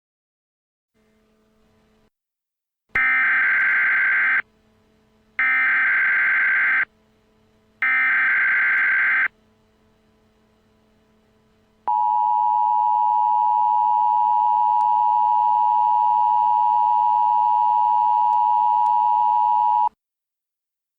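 Emergency Alert System tones. Three bursts of SAME header data, each about a second and a half long with about a second between them, announce the alert. A few seconds later the EAS two-tone attention signal sounds, one steady tone held for about eight seconds before cutting off sharply.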